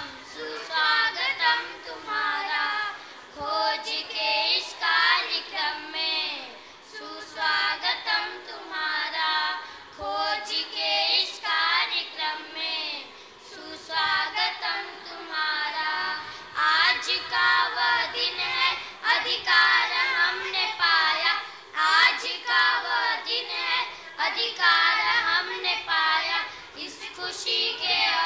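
A small group of young girls singing a song together into microphones, in phrases of a few seconds with short breaks between them.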